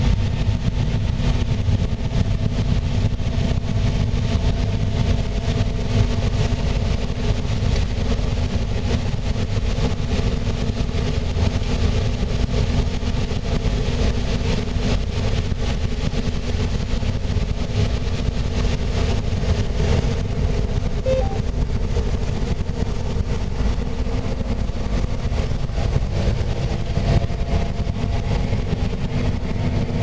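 John Deere combine harvesting corn, heard from inside the cab: the engine and machinery running with a steady, unbroken drone.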